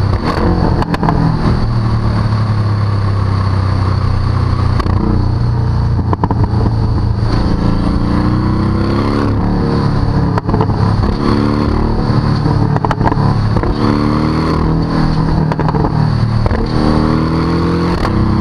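Porsche 718 Cayman GTS's 2.5-litre turbocharged four-cylinder engine, heard at its exhaust tips under acceleration. The engine note holds fairly steady at first, then climbs in pitch several times in the second half as it pulls through the gears, with scattered sharp cracks.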